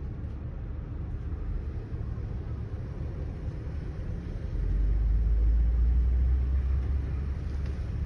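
Steady low road and engine rumble of a moving car heard inside the cabin. The rumble gets deeper and louder about halfway through, then eases a little near the end.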